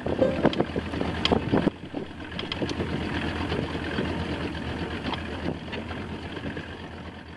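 Small motorboat under way, with its 70 hp Evinrude outboard and water rushing along the hull, plus wind on the microphone. A few sharp slaps come in the first two seconds, then a steadier rush that slowly fades near the end.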